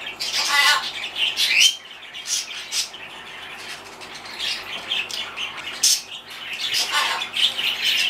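Blue-and-gold macaw calling with short squawks and chirps. There is a harsh pulsed call about half a second in, a rising whistle-like call soon after, and another harsh call near the end.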